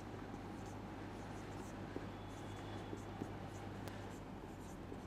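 Marker pen writing on a whiteboard: a run of short, faint strokes, over a low steady hum.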